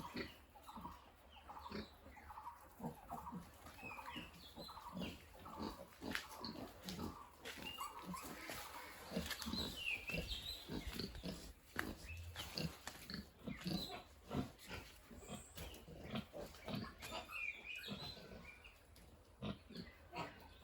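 Pigs grunting almost continuously in short low grunts, with a few brief high-pitched squeals.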